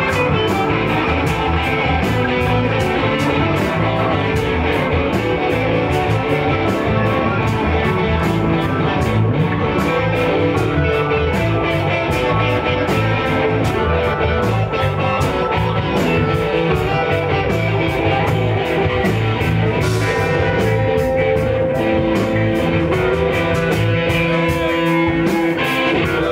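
Live band jamming: two electric guitars trading lines over electric bass and a drum kit keeping a steady beat.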